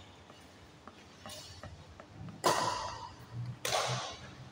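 Badminton rackets striking a shuttlecock during a rally: two sharp hits about a second apart in the second half, each ringing out briefly in the hall's echo, after a few faint taps in the first half.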